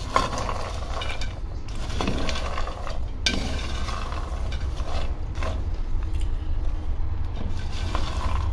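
Peanuts being stirred with a wooden spoon as they roast in a pot, rattling and scraping with many irregular clicks over a low steady hum.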